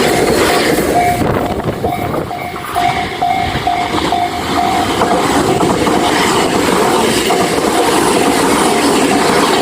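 Japanese level-crossing alarm bell ringing in an even, rapid ding-ding, about two to three dings a second, over the loud steady rumble and rail clatter of a passing train.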